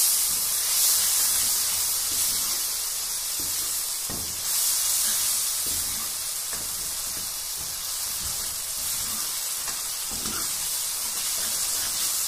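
Onion, green chilli and spice masala sizzling and hissing in hot oil in a steel kadhai, with a little water just added to it. A steel ladle stirs it, giving small knocks and scrapes against the pan now and then.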